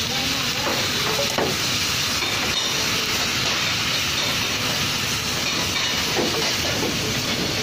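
Chopped cabbage sizzling as it is stir-fried in a stainless steel frying pan over a gas burner: a steady hiss, with a few light knocks from the stirring utensil.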